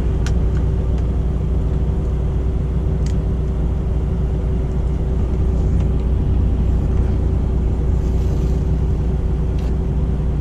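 Peterbilt 579's diesel engine idling with a steady low drone, heard inside the cab, with a few faint clicks as parts under the seat are handled.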